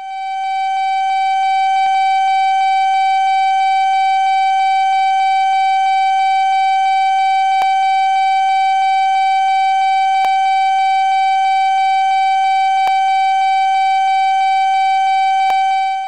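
A single held tone, steady in pitch and loudness, with a string of even overtones; it swells up over the first second and cuts off suddenly at the end.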